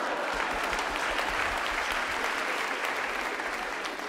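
Audience applauding, a dense patter of clapping that starts to die down near the end.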